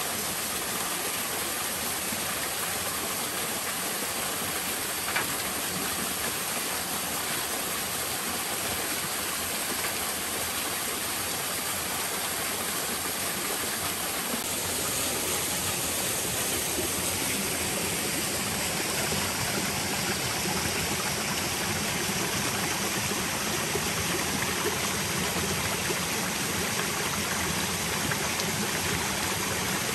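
Steady rush of a small waterfall splashing into a rocky pool and a forest stream running over boulders, with one short click about five seconds in.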